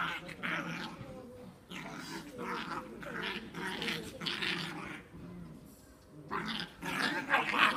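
Two puppies play-fighting and growling in short, repeated bursts, with a lull just after the middle and a louder stretch near the end.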